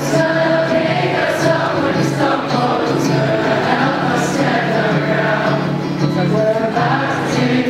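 A large choir of graduating students singing their graduation song, with steady held notes throughout.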